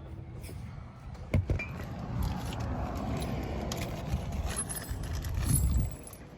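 Small metal parts clinking and rattling as pit-bike hardware is handled, with a sharp click about a second in. Under it is a low rumble that cuts off near the end.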